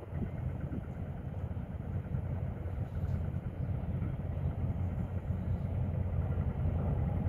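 A low, steady engine rumble mixed with wind buffeting the microphone.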